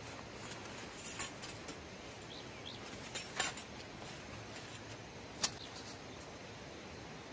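Folding stainless-steel fire stand clinking as it is slid out of its canvas pouch and its legs are swung open: a few short, sharp metal clinks, the sharpest about five and a half seconds in.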